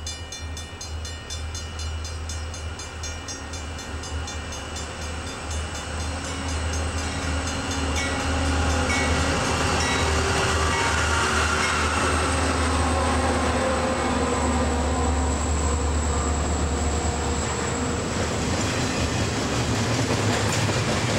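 BNSF freight train approaching and passing at speed behind GE wide-cab diesel locomotives, with a low engine rumble and rail noise that grow louder until about eight seconds in. After that come the steady wheel noise and rattle of double-stack container cars rolling by.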